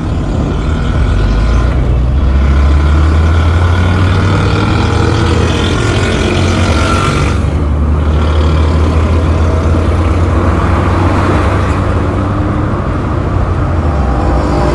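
Road traffic noise: a steady, loud low vehicle rumble with the hiss of passing traffic, the higher hiss briefly dropping away about halfway through.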